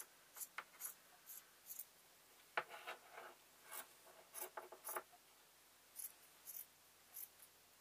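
Scissors snipping through a black sock: a string of short, faint cuts, coming thickest through the middle.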